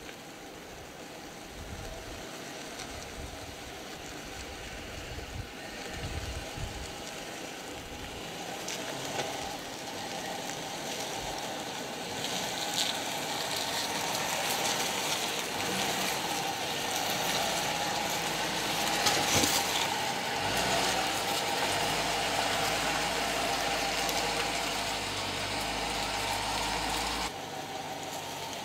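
Jeep Grand Cherokee SUV's engine running at low revs as it crawls over granite rock, growing louder as it draws closer.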